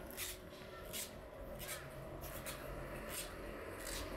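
Footsteps crunching on a gravel path at a steady walking pace, about one step every 0.7 seconds, over a low, steady background hum.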